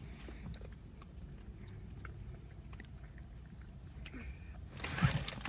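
A child quietly chewing a soft marshmallow, with faint mouth clicks. A louder rustling noise comes in near the end.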